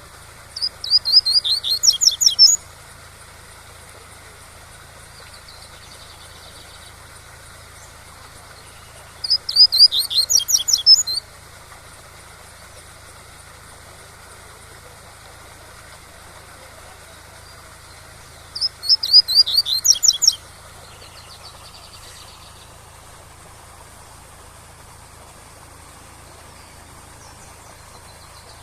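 Double-collared seedeater (coleiro) singing the tui-tui song: three phrases of about two seconds each, made of rapid, high repeated notes, spaced about eight seconds apart. A steady rush of waterfall noise runs underneath.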